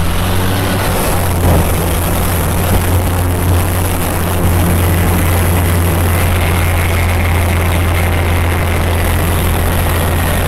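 Light aerobatic plane's piston engine and propeller droning steadily, heard inside the cockpit as a deep hum with a rushing noise over it. It gets a little louder about four and a half seconds in.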